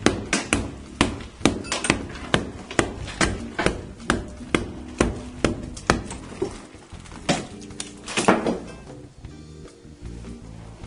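Hammer blows on an old plaster wall, sharp knocks about two a second, breaking the plaster out along a line; they stop about eight seconds in. Background music plays throughout.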